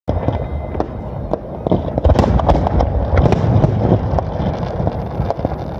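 Fireworks display: many overlapping bangs and crackles in quick succession over a low rumble, getting louder about two seconds in.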